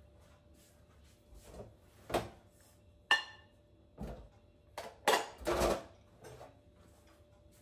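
Stainless steel pots and pans being handled at a steel kitchen sink, knocking and clattering against each other. There is a sharp metallic clink that rings on briefly about three seconds in, and louder clatters around five seconds.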